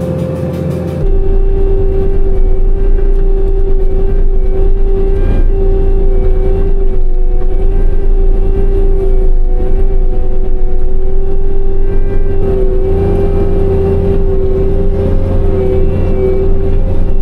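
Skid steer with a subsoil mulcher attachment running, a loud steady machine drone with a constant hum above a low rumble. It gets louder about a second in.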